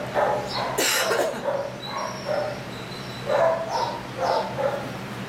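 Dogs barking repeatedly in shelter kennels, in short bursts, over a steady low hum.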